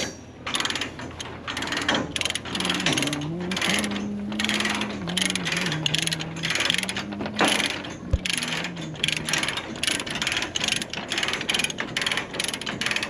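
Ratchet chain binder being cranked to tighten a chain over a trailer load, giving a run of uneven ratcheting clicks a few times a second. The binders are brand new and still stiff while breaking in. A wavering tone runs through the middle of the cranking.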